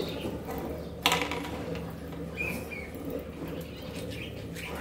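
Small spinning tops whirring on a wooden chair seat, a steady hum, with one sharp knock about a second in and a brief high squeak about two and a half seconds in.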